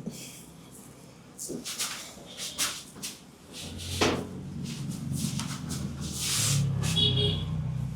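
Hands at work in a head massage: a run of short rubbing and slapping strokes on skin and hair, the sharpest about four seconds in, then a longer rub.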